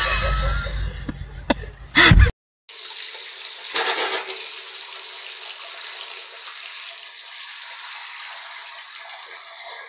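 Tap water running into a washbasin that is filling up, steady splashing that starts after a short gap and surges briefly about a second in. Before it, a loud, unclear burst of noise with a sharp hit that cuts off.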